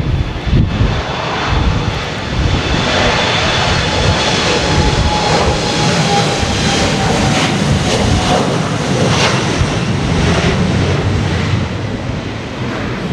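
Airliner's engines passing close: a loud, steady rush with a high whine that drops slightly in pitch, and wind gusting on the microphone.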